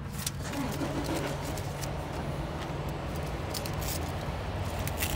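Steady low hum of an idling engine, with light clicks and crinkles of something being handled, thicker near the end.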